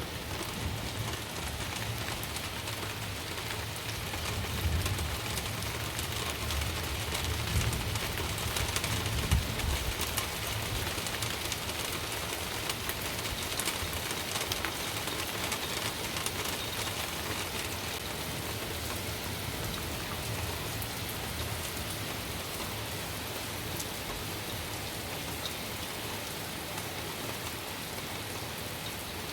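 Steady rain falling during a night thunderstorm, with a low rumble of thunder through roughly the first ten seconds that then dies away.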